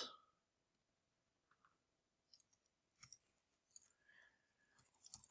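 Near silence with a few faint, scattered clicks from a computer keyboard and mouse as code is entered.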